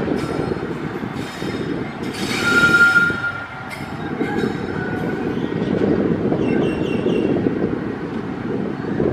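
WAG-5 electric locomotive running on track with a steady rumble, and a brief high-pitched tone over the rumble about two and a half seconds in, where it is loudest.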